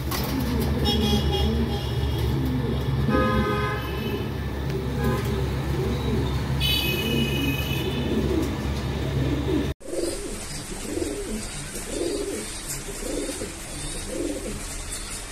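Lahore fancy pigeons cooing repeatedly, over a steady low hum with several short high-pitched tones in the first part. The sound breaks off sharply about ten seconds in, and the cooing then goes on against a steady hiss.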